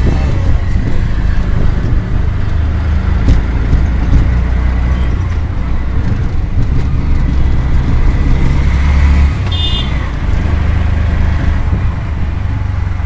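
Road traffic with a steady low rumble of passing vehicles, and a brief horn toot about nine and a half seconds in.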